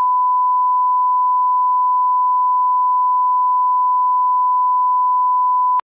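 Steady 1 kHz test tone, the reference tone played with colour bars: one pure, unchanging beep that cuts off suddenly with a click just before the end.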